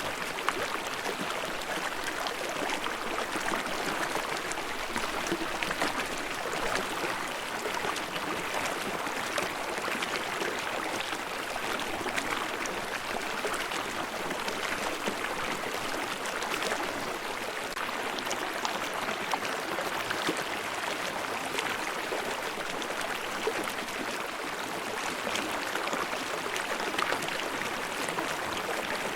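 Mountain stream babbling steadily, water gurgling and splashing at an even level.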